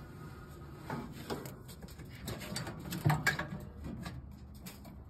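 A gloved hand fishes a snapped washer drive belt out from the bottom of the washer cabinet. Scattered rustles, scrapes and light knocks of rubber and glove against the machine's parts, loudest about three seconds in.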